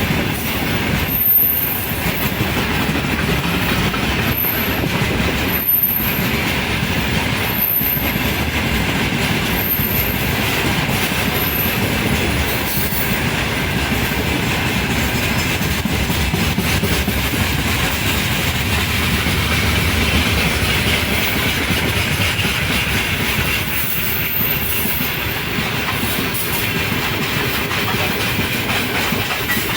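Freight train wagons rolling past steadily, their wheels clattering over the rail joints.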